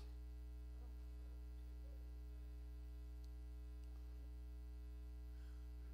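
Steady electrical mains hum, even and unchanging, under faint room noise.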